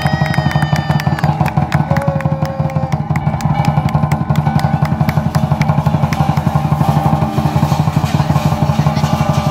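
Chinese lion dance percussion: a large lion drum beaten in a fast, steady rhythm, with clashing cymbals over it.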